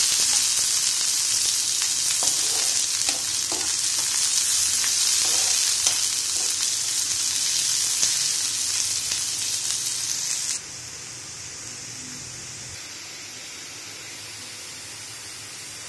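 Chopped onions sizzling in hot oil in a frying pan as they are browned, stirred with a spatula, with a few faint scrapes. About ten seconds in the sizzle drops suddenly to a quieter level.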